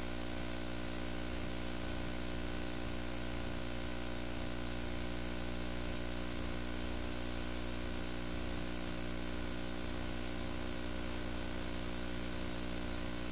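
Steady electrical static hiss with a constant hum of several fixed tones, carrying no heartbeat rhythm. It is line noise on the ultrasound machine's audio feed while it is still in imaging mode, before the Doppler heartbeat sound is switched on.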